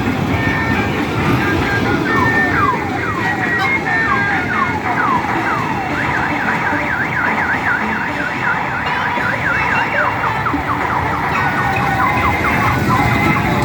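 Electronic siren-like sound effects: a run of falling tone sweeps, then a fast warble about halfway through, then more sweeps, all over a steady rumble.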